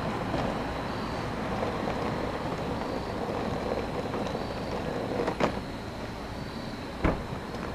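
Rotem Silverliner V electric multiple-unit train running away down the track, its noise growing fainter after about five seconds. Two sharp knocks come about 5 and 7 seconds in.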